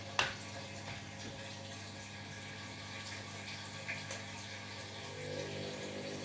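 Washing machine washing a load of bed linen: water in the drum over a steady hum, with sharp clicks near the start and again about four seconds in. A louder low tone comes in about five seconds in.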